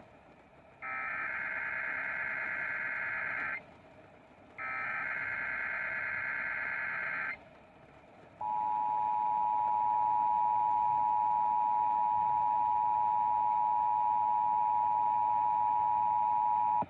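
Emergency Alert System Required Monthly Test: two bursts of digital SAME header data, each about three seconds long, then the steady two-tone EAS attention signal. The attention signal starts about eight seconds in and holds for about eight and a half seconds before cutting off sharply. It is the tone that precedes the test announcement.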